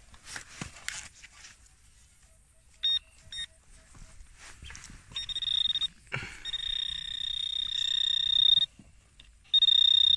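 Handheld metal-detecting pinpointer sounding a high electronic tone: a few short beeps about three seconds in, then a steady tone from about five seconds in that breaks off twice and grows louder, signalling metal close to its tip in the dug hole. Spade scraping in soil near the start.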